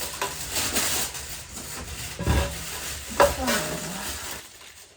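Food frying and sizzling in a pan as it is stirred, with a couple of knocks of a utensil against the pan; the sizzle fades out about four seconds in.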